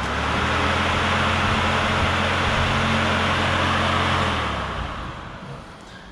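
Electric intercooler thermo fan being test-run off direct power: a steady rush of air with a low motor hum, cut off about four seconds in and winding down.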